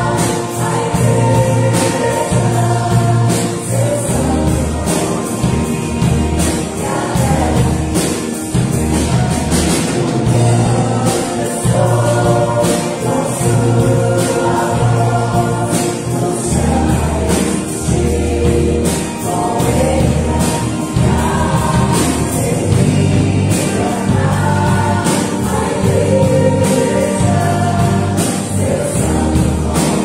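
A mixed choir of women's and men's voices singing a gospel song, backed by a live band of drum kit, electric bass, guitar and keyboard, with a steady drum beat and a moving bass line.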